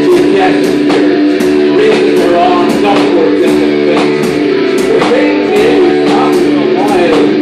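Live rock band playing: electric guitars over drums, with cymbal hits on a steady beat about three times a second.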